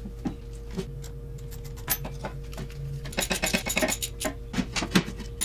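Light metallic clinks and clicks of tools and hardware being handled while a new battery is fitted, with a quick run of clicks about three seconds in.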